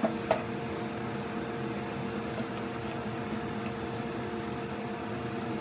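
Steady machine hum with several fixed tones, like a fan or air conditioner running in a small room, with one short click about a third of a second in.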